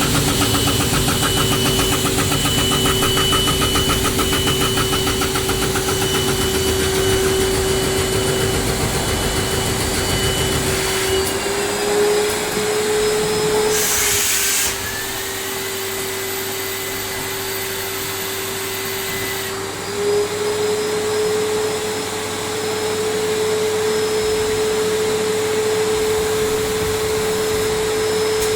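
CNC machine running, its spindle giving a steady whine over machining noise. The whine steps up slightly in pitch a few times. The heavier low noise under it drops away after about eleven seconds, and a short loud hiss breaks in about halfway through.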